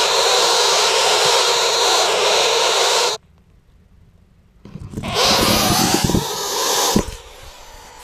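Northern flicker nestlings inside their tree-cavity nest giving a loud, steady buzzing hiss, which cuts off suddenly about three seconds in. After a brief near-silent gap, a couple of seconds of rumbling handling noise and knocks as the camera is pulled out of the nest hole.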